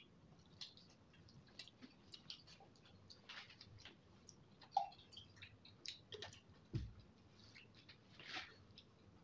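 Faint, scattered wet clicks and smacks of someone eating saucy noodles with their fingers, with a soft thump about seven seconds in.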